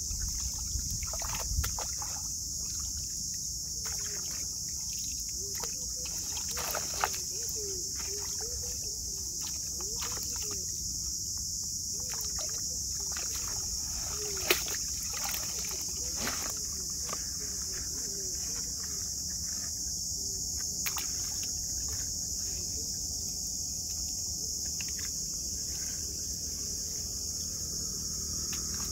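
Scattered clicks and knocks of live shrimp and small fish being shaken from a mesh net bag into a plastic bucket, with two sharper knocks about 7 and 14 seconds in, over a steady high hiss.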